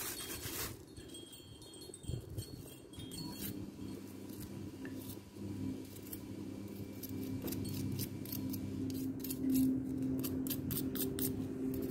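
Metal spoon and fork scraping through compost and clinking against each other as potting compost is spooned from a plastic bag into a plastic pot, with the plastic bag crinkling at the start. The clicks come thicker over the last few seconds, over a low steady hum that builds from a few seconds in.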